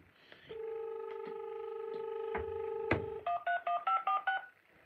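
Uniden XDECT cordless phone handset: a steady dial tone for about two and a half seconds, then a quick run of short touch-tone keypad beeps as a number is dialled.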